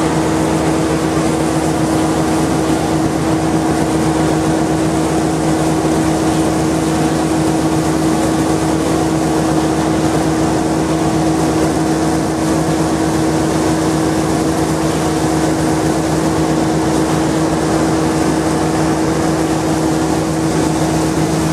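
SBS-8 mortar pump running steadily: a constant motor drone with a strong steady hum and no change in speed.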